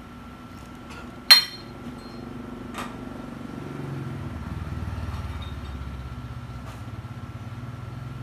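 A sharp metal-on-metal clink about a second in, with a brief ring, and a lighter click shortly after. Then a low engine rumble swells and eases off, like a vehicle running close by.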